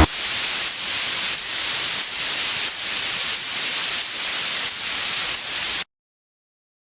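Loud pulsing white-noise hiss, an electronic-music noise effect that swells about every two-thirds of a second, then cuts off suddenly to silence about six seconds in.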